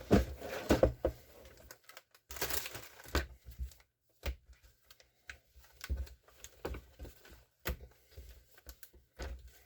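LEGO set packaging being opened and handled: crinkling and tearing, loudest in the first second and again about two and a half seconds in, then scattered short clicks and knocks.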